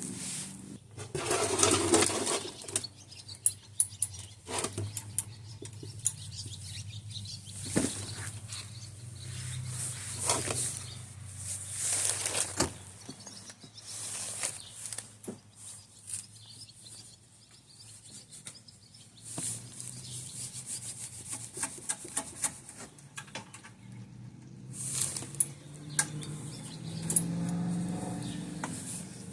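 Scattered clicks, light knocks and rustling bursts of hands and tools being handled, over a faint low hum.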